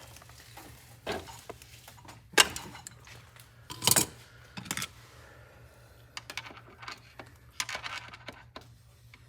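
Scattered metal clinks and clanks of small channel-lock pliers working inside a Ford-O-Matic automatic transmission case, trying to grip a tight part and pull it out. The sharpest clank comes about two and a half seconds in, another strong one about a second and a half later.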